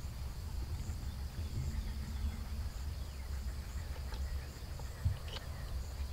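Outdoor evening ambience of insects: a steady high trill with softer chirps pulsing above it about once a second, over a low rumble, with a few faint clicks.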